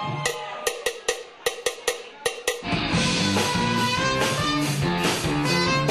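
Live rock band: about ten sharp, uneven percussion hits, then about two and a half seconds in the full band comes in with electric guitar, bass and drums.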